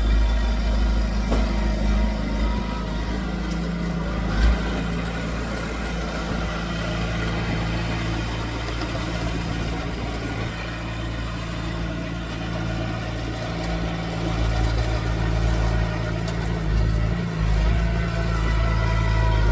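Diesel engine of heavy earthmoving equipment running steadily, with a single sharp knock about four seconds in and a change in engine note near the end.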